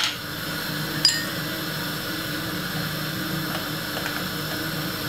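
A metal whisk clinks against a stainless steel saucepan twice, once at the start and again about a second in, the second with a short ringing tone. A steady low hum and hiss run underneath.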